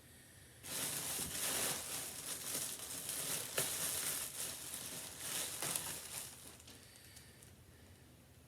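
Clothes being rummaged and pulled from a box of clothing, crinkling and rustling for about six seconds, then dying down near the end.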